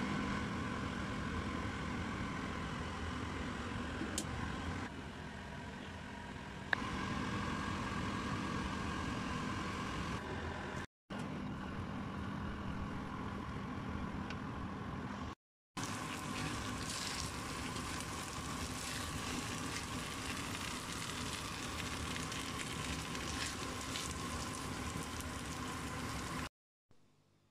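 Risotto sizzling and simmering in a frying pan on a gas stove as it is stirred with a plastic spatula, over a steady low hum. The sound cuts out briefly twice and stops shortly before the end.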